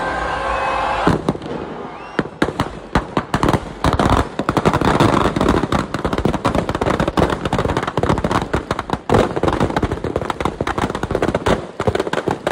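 Firecrackers packed inside a burning Ravan effigy going off in a rapid, unbroken string of bangs and crackles, denser and louder from about four seconds in.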